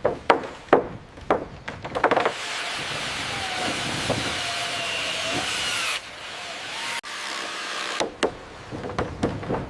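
Construction work: a quick run of knocks on wood, about two a second, then a power tool running steadily for about five seconds, changing abruptly twice, before the knocking starts again.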